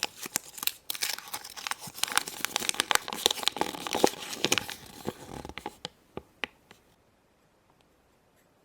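Crinkling and rustling of paper and wrapping being handled, likely from the small folded Kinder Egg flyer. It thins out to a few light clicks and taps about six seconds in, then stops.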